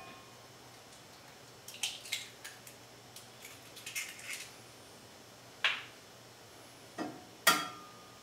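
Eggs being cracked into a polished cast iron skillet: small crackles of eggshell being pulled apart, then a few sharp taps of shell on the skillet, the loudest near the end leaving a short metallic ring.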